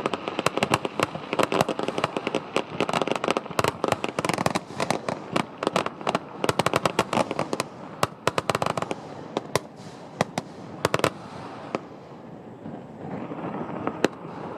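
Fireworks going off in rapid, sharp cracks, dense for most of the first nine seconds, then thinning to a few scattered cracks and a single last crack near the end.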